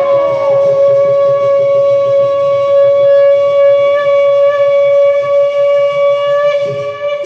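Conch shell blown in one long, steady, unwavering note that is held throughout.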